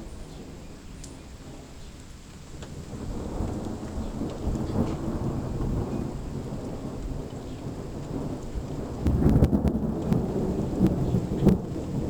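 Thunder rumbling during a rainstorm, with rain falling throughout. The rumble builds from about three seconds in and is loudest near the end.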